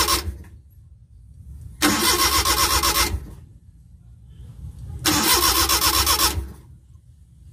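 Suzuki F5A three-cylinder engine in a Multicab being cranked by its starter motor in short bursts of about a second each: the end of one burst, then two more with pauses between. The engine turns over but never fires: a no-start.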